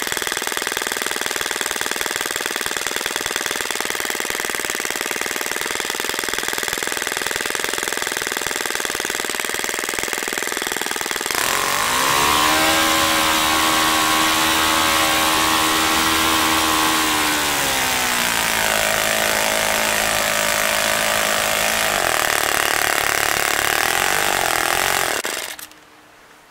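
OS FS-30 Surpass four-stroke glow engine running on its first run with a new valve spring, turning a propeller. About eleven seconds in it revs up into a louder, steady high-rpm note, peaking near 9,900 rpm. It drops to a lower note and changes again a few seconds later, then cuts out abruptly near the end.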